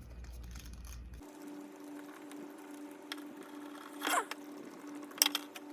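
Faint clicks and ratcheting of a screwdriver driving small screws back into an RC crawler's locking differential housing, over a steady hum. A short squeak-like sound comes about four seconds in.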